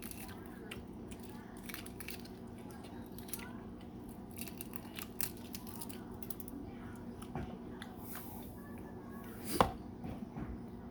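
Close-up eating sounds of a boiled balut duck egg: scattered small clicks and crackles of shell and wet mouth sounds, with one sharp knock near the end.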